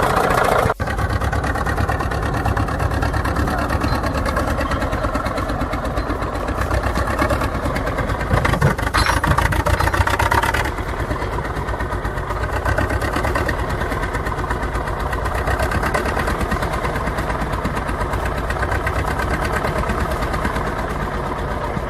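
The diesel engine of a T-100 crawler bulldozer running steadily with a fast, even firing rhythm. It has just been brought back to life after standing idle for about 20 years.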